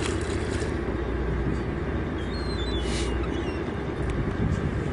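Boat engine running steadily, a low even drone, with a few faint short high chirps over it and a brief swish about three seconds in.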